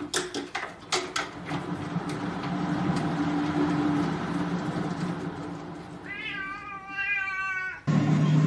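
Cat yowling: a long low moan, then a higher drawn-out meow that falls slightly. It is cut off abruptly near the end, with a few soft knocks just before the moan starts.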